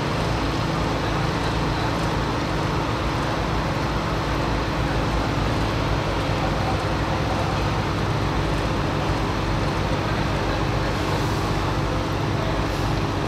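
Heavy diesel engine of a large mobile crane running steadily as a constant low drone.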